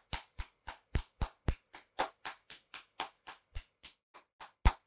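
A rapid, even ticking of sharp clicks, about four a second, which stops shortly before the end.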